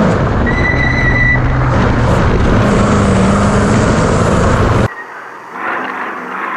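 Ford Ranger desert race truck running hard over rough terrain: loud, dense engine and chassis noise with a steady low engine note. About five seconds in it drops away abruptly to a much quieter engine sound that rises in pitch.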